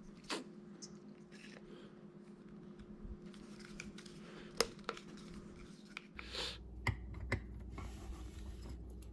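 Scattered light clicks and rustles of small plastic parts being handled and pressed together: the toothbrush's circuit board and new battery being fitted back in. A faint, low, steady hum runs underneath.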